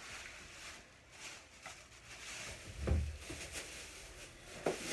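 Groceries being handled and set down: quiet scattered handling noises, a dull thump about three seconds in and a sharp knock near the end.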